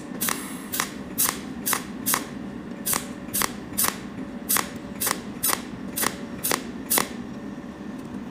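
Pulse-type cold welder firing onto copper balls as welding wire is fed into the joint: a sharp snap about twice a second, some fifteen in all, stopping about seven seconds in, over a steady low hum.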